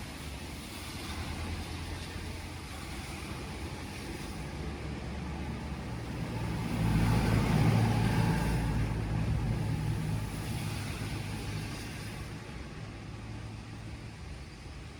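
A motor vehicle passing. Its low engine and road rumble rises to a peak about halfway through, then fades away.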